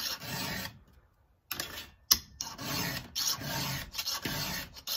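Round chainsaw file rasping through the cutters of a chainsaw chain as it is sharpened, in repeated strokes about two a second, with a short pause about a second in.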